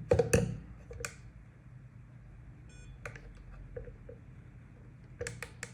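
Several sharp clicks and knocks of equipment being handled, loudest just at the start and again near the end, with one short electronic beep about two and a half seconds in from a battery spot welder being set up.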